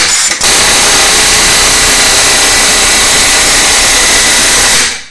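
Electric power tool, most likely an electric impact wrench, running loud and steady, with a brief stutter at the start, then stopping near the end. It is driving the suspension tool to force the lower ball joint out of its seat.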